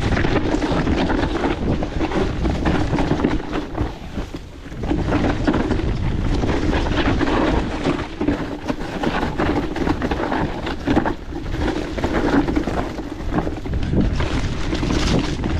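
Wind buffeting the action camera's microphone over the tyre noise and rattling knocks of an electric mountain bike ridden fast over a rough dirt trail. It eases briefly about four seconds in.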